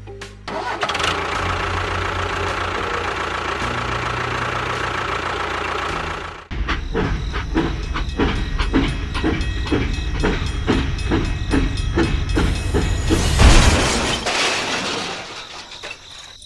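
Engine running steadily for about six seconds, then a rhythmic chugging of about three beats a second that builds to a loud peak near the end and fades.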